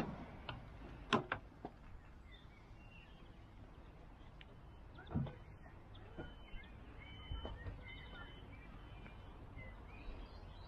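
A few scattered knocks and clicks from handling a Lada Niva's door and cabin, the loudest about a second in and another around five seconds in. Birds chirp faintly in the background.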